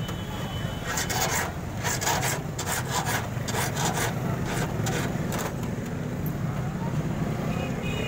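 Steel hand file rasping back and forth over a duplicate metal key, dressing its freshly cut edges: a run of quick scratchy strokes, about three a second, that stops a little past halfway.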